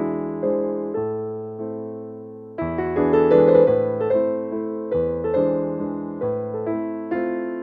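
Background music of electric piano playing a gentle melody of struck notes that ring and fade, with a new chord coming in about two and a half seconds in.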